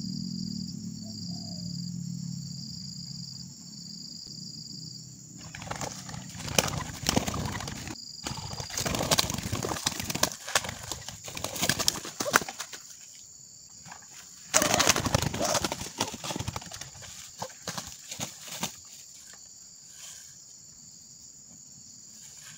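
Spotted dove caught in a ground snare, beating its wings and thrashing in the grass in repeated loud bursts that start a few seconds in and die away near the end, over a steady insect drone.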